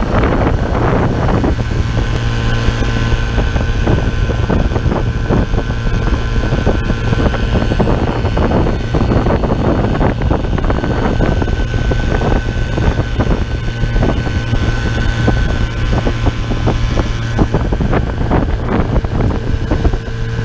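Small outboard motor running steadily at speed, pushing an aluminum jon boat, with wind buffeting the microphone and water rushing past the hull.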